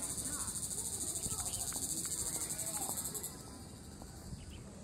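Insect song: a loud, high, rapidly pulsing buzz that stops abruptly about three seconds in, over a fainter steady high insect hum that carries on.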